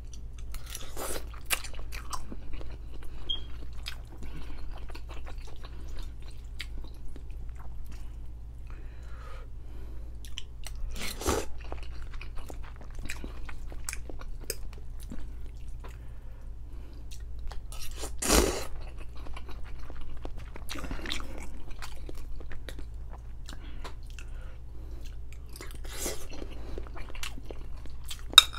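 Close-up mouth sounds of a person chewing noodles and soft food: wet, irregular chewing with scattered small clicks and a few louder smacks, the loudest about two-thirds of the way through. A faint steady low hum sits underneath.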